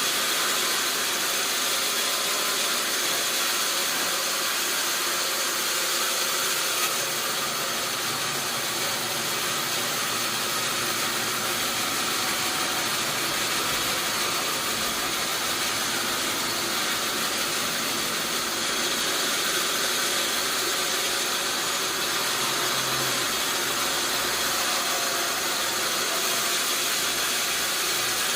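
Sawmill machinery running steadily: a continuous, even mechanical noise that does not change.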